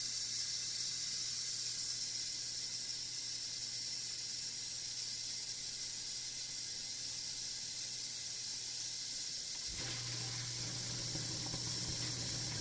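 Whirlpool Gold Series dishwasher filling with water: a steady hiss of water coming into the tub over a low hum. About ten seconds in the sound changes as the fill ends and the wash pump starts, with water beginning to spray.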